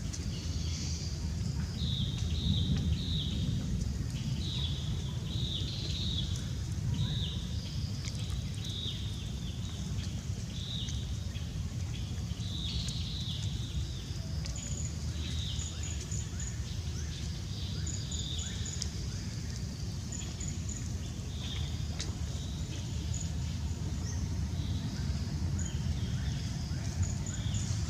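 Outdoor ambience: repeated short, high animal chirps in quick clusters, joined about halfway through by groups of even higher peeps, over a steady low rumble.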